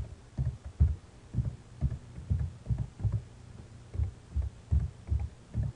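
Computer keyboard keystrokes heard as a string of short, dull, low thuds, roughly two or three a second and slightly uneven, as a name is typed.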